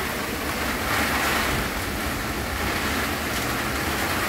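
Heavy rain pouring down in a windstorm: a dense, steady hiss of the downpour that swells slightly now and then.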